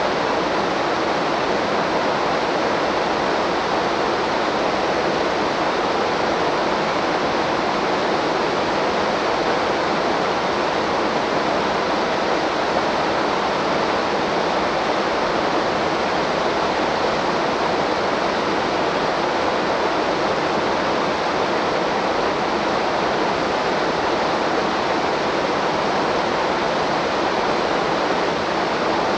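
Waterfall rushing steadily, an even, unbroken roar of falling water.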